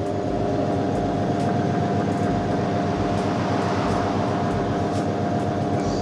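Polytron PAW-9010LB top-loading washing machine on its spin cycle: the motor and drum run with a steady hum and whine and a low repeating throb. The machine is spinning now that its water level sensor has been replaced.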